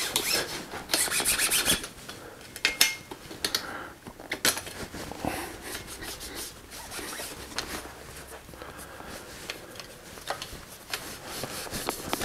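Cloth rag rubbing over a bicycle frame's tubes and cables: fast rubbing strokes in the first couple of seconds, then quieter, slower wiping, with a few sharp ticks mixed in.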